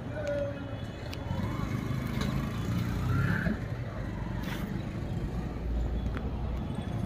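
Outdoor traffic ambience: motor vehicles running, with faint voices in the background.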